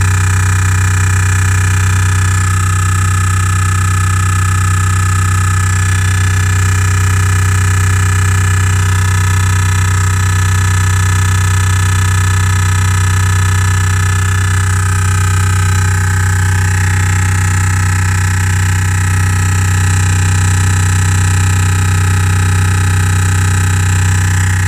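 Loud, steady drilling-like drone from the Renault Grand Scenic's Bose sound system, strongest in the bass, with a high whine layered on top and no change in level, playing with the engine off. It is a fault that the owner traces to the Bose system's bass; Renault later put it down to the R-Link unit, cured by reprogramming the navigation system.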